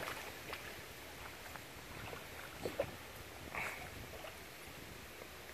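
Faint, scattered splashes and sloshing from a large hooked fish thrashing in shallow, weedy water.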